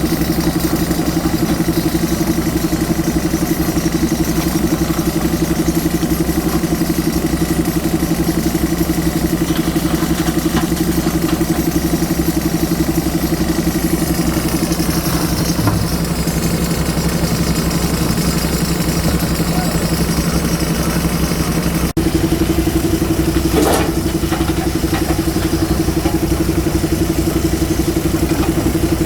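Diesel engine of a JCB 3DX Super backhoe loader running steadily, with a single short knock late on.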